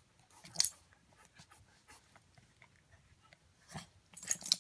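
A Pekingese puppy making short dog sounds while play-biting a plush boxing-glove toy held in a hand: a few brief noisy bursts, one loud about half a second in and a louder cluster near the end.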